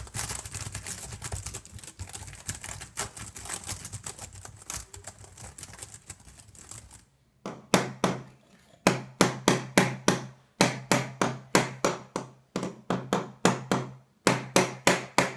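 Fast, two-handed mashing of a laptop keyboard, a dense clatter of keys, for about seven seconds. Then a hammer strikes a flat board again and again, about three blows a second in short runs with brief pauses.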